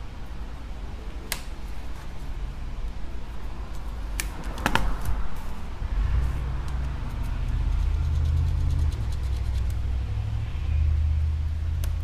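Sharp clicks and light scraping of a small metal tool against an iPad's aluminium frame as broken glass and old adhesive are cleared away, a few scattered ticks with a cluster of them near the middle, over a steady low rumble that gets louder about halfway through.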